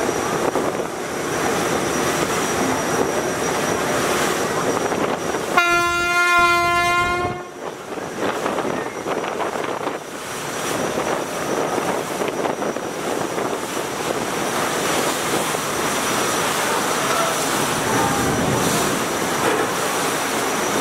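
A river passenger launch's horn sounds one long blast, just under two seconds, about six seconds in. Under it runs the steady rush of the launch's engines and churning river water.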